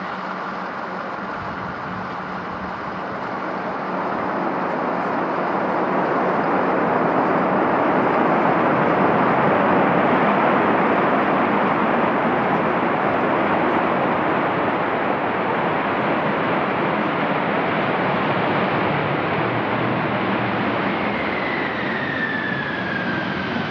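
Jet engines of Air Force One, a Boeing 747 (VC-25A) with four turbofans, as it rolls out on the runway after landing: a steady rushing roar that builds over the first few seconds, with a thin whine falling in pitch near the end.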